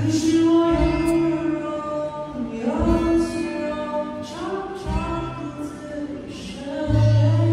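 Man singing into a microphone in three sustained phrases, accompanied by strummed acoustic guitar.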